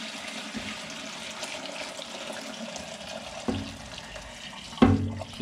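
Hot turkey-bone broth pouring from a stockpot through a metal strainer into a bowl, a steady splashing stream. Two knocks break in, one about three and a half seconds in and a louder one near the end.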